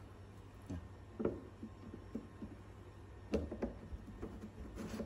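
Scattered clicks and knocks of hard plastic planter parts, the wall panels and a corner post, being handled and fitted together, the sharpest about a second in and just past three seconds in.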